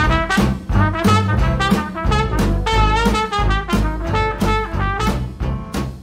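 Swing-style jazz music, brass horns playing a tune over a steady beat.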